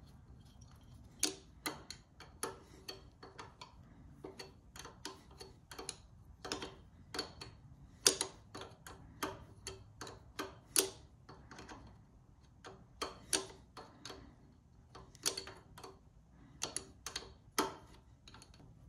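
Sharp metallic clicks from a hand wrench working on the carburetor's fittings as they are tightened, irregular, about one to three a second with short pauses.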